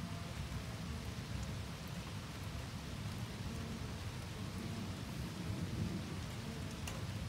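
Steady rain falling while thunder rumbles low through the storm.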